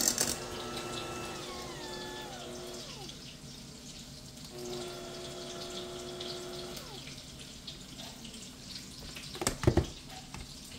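KitchenAid Ultra Power Plus electric hand mixer whipping mashed potatoes in a saucepan. Its motor whine runs steadily, winds down in falling pitch about two and a half seconds in, starts again shortly after and winds down again about two-thirds through. A few sharp knocks come near the end.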